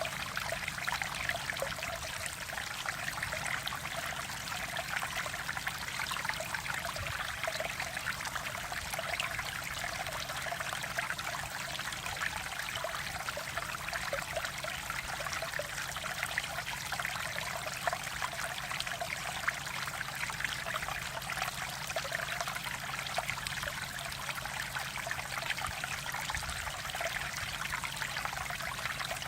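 Mountain valley stream water flowing and trickling over rocks, a steady, even babble.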